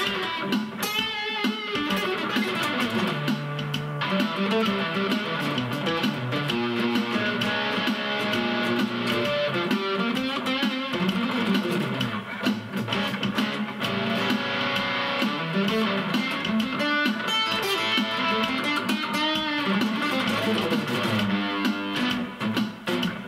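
Acoustic guitar amplified through a Zoom G1 Four effects pedal and a Roland Cube-10 amp on its JC Clean setting with a little reverb, playing a continuous run of picked notes and chords.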